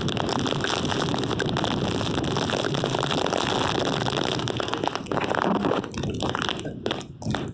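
Hurricane wind, a loud, dense rushing that buffets the microphone, breaking up into gaps in the last second or so.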